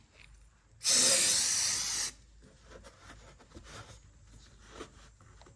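Aerosol can of solvent cleaner sprayed in one loud hissing burst of just over a second, about a second in, followed by faint small clicks and rubbing.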